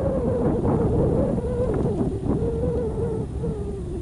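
Wind buffeting the microphone with a low rumble, over a steady wavering tone that sinks slowly in pitch.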